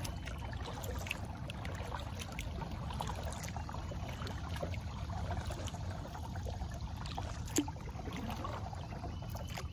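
Kayak being paddled: water swishing and trickling off the paddle blades over a steady low rumble, with one sharp click about seven and a half seconds in.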